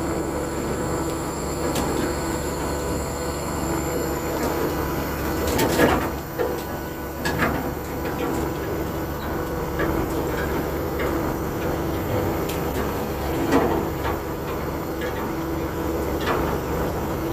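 A ship's engine running with a steady drone, with a few sharp knocks over it, the loudest about six seconds in and again near fourteen seconds.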